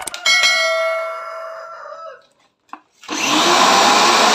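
A clear ringing sound that dies away over about two seconds, then about three seconds in a used pressure washer's electric motor switches on and runs loudly with a steady whine, test-run with no water hose on its inlet.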